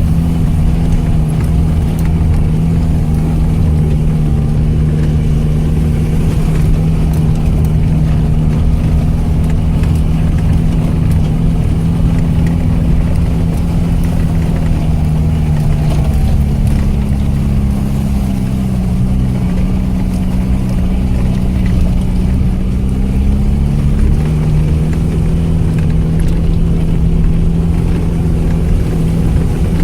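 ARO off-road vehicle's engine running steadily. Its note sags in pitch about halfway through and climbs back a few seconds later.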